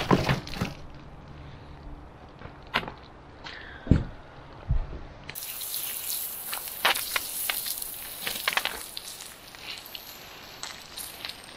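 A heavy steel roller chain knocking and clanking a few times as it is handled, then from about five seconds in a jet of water hissing onto the chain and steel grating, rinsing off rust-removal solution.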